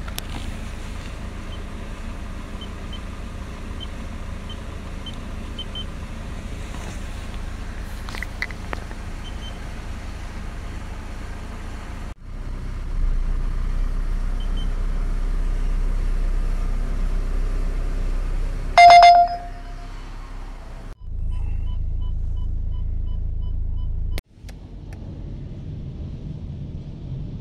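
Steady low rumble of an idling van and an automatic rollover car wash running, with a few short keypad beeps a few seconds in. A single loud electronic beep sounds past the middle, followed by a run of quick, evenly spaced beeps.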